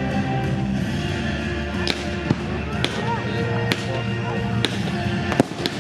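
Fireworks display with music playing over loudspeakers: steady music throughout, with about six sharp firework bangs from about two seconds in, the loudest shortly before the end.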